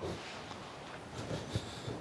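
Quiet workshop room tone with a few faint, soft thumps in the second half.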